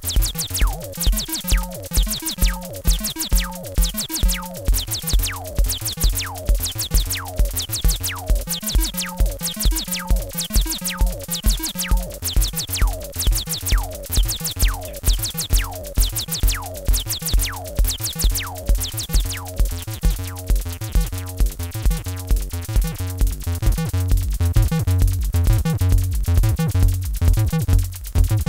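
Electronic acid music: an Acidlab Bassline 1, a TB-303-style bass synthesizer, plays a repeating sequenced bassline over a steady drum-machine beat of kick and ticking hi-hats from a Korg Monotribe. The bass gets louder in the last few seconds.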